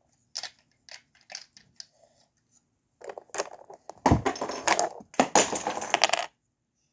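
Plastic Lego pieces clicking and clattering as they are handled. A few scattered clicks come first, then a dense run of clatter for about three seconds that stops abruptly.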